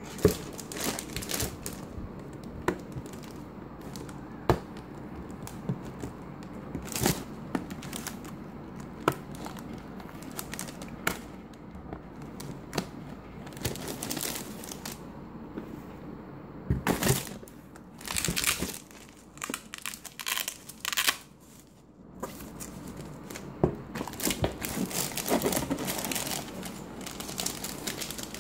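Clear plastic wrapping crinkling and rustling as it is handled, with scattered sharp clicks and taps. There are denser bursts of crinkling a little past the middle and again near the end.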